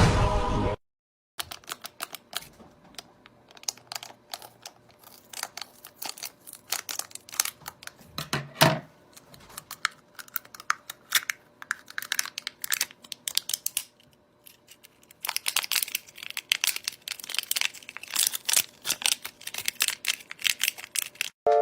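Fast, irregular clicking and popping of plastic fidget toys being pressed and fiddled with by hand, with a louder pop about eight seconds in and a brief pause a little past the middle.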